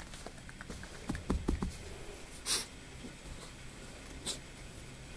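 A small dog rolling and rubbing itself on a towel and carpet to dry off after a bath: soft thumps and rustling from its scrambling, then two short hissing bursts about two seconds apart.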